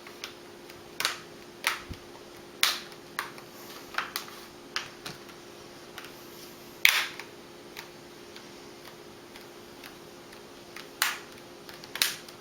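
Plastic snap clips of a laptop screen bezel clicking into place one by one as it is pressed back on around the display: a string of sharp, irregular clicks, the loudest about seven seconds in, then a pause of a few seconds before two more near the end.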